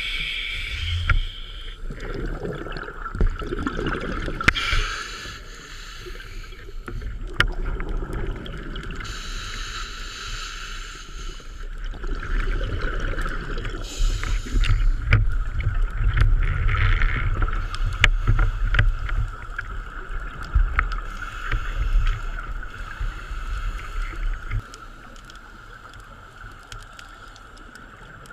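Underwater sound heard through a diving camera's housing: a muffled low rumble and water sloshing with scattered sharp clicks and knocks, over a steady thin whine. It is loudest in the middle and turns much quieter near the end.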